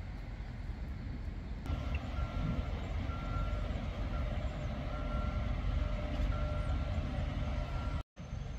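A high electronic beeping, coming and going in uneven spells, starts about two seconds in over a steady low rumble. The sound drops out completely for a moment near the end.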